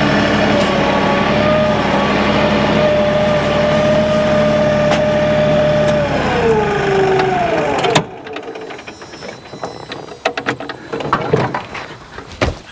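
An engine idling steadily, then winding down in pitch and shutting off about eight seconds in, followed by light knocks and clatter.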